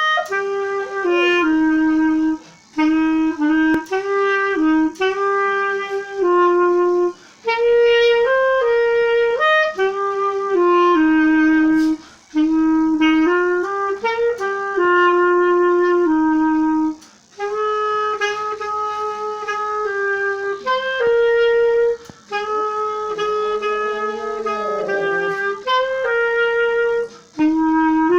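Clarinet playing a slow hymn melody in held notes, with a pinscher howling along; a howl that rises and falls stands out about two thirds of the way through.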